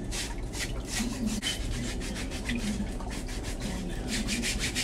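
Nail file buffer block rasped back and forth over toenails in short, even strokes, a few a second, coming faster near the end.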